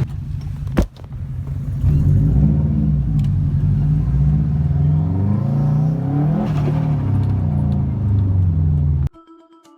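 Subaru Impreza WRX STi's turbocharged flat-four boxer engine being revved repeatedly, its pitch climbing and falling several times. A single sharp bang sounds under a second in.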